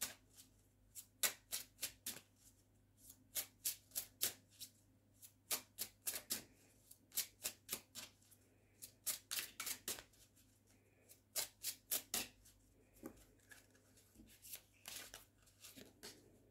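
A deck of oracle cards being hand-shuffled: soft quick clicks of cards dropping and slipping against each other in short runs of several a second, with brief pauses between runs.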